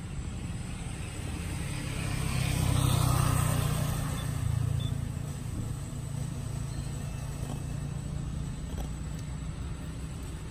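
A motor vehicle's engine hum, low and steady, growing louder about two to four seconds in and then easing back.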